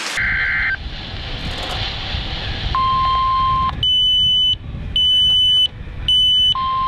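VHF marine radio (Standard Horizon Matrix AIS/GPS) sounding a weather alert: a steady lower tone about a second long, then three short, high-pitched beeps, then the lower tone again near the end. Under it runs steady wind and sea noise.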